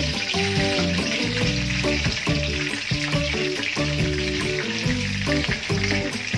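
Oil sizzling steadily in a wok as a knotted pandan leaf fries at the start of the sauté. Background music plays along.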